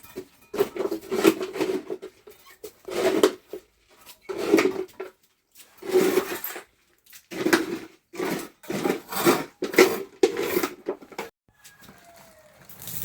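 A run of about eight rubbing or scraping strokes, each about a second long, repeating roughly every second and a half.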